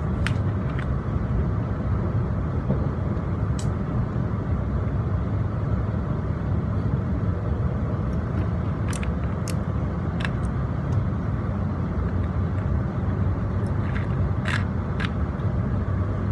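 Steady low rumble inside the cabin of a running Shinkansen bullet train, with a few scattered sharp clicks.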